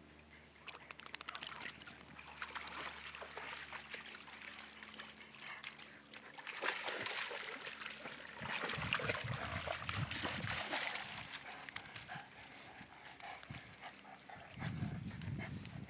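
Dogs wading and swimming through shallow water, sloshing and splashing, then scrambling out onto a muddy bank, with dull low thumps around the middle and again near the end.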